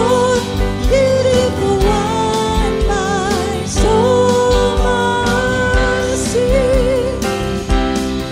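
Worship band performing live: a woman and a man singing the melody together over acoustic guitar, keyboard, electric bass and drums keeping a steady beat.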